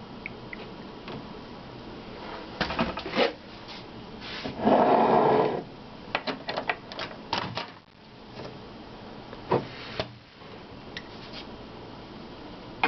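Kitchen handling sounds: scattered clicks and knocks of a milk container and mug, with about a second of milk being poured a little before the middle.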